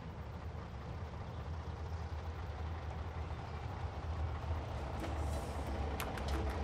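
Heavy tree-transplanting truck's engine running as it drives slowly along the road, a steady low rumble that grows louder. A few sharp clicks near the end.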